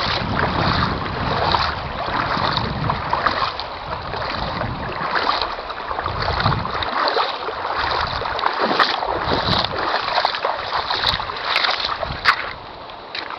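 Water splashing while crossing a shallow, stony river, in regular surges about once a second, with a low rumble under it through the first half.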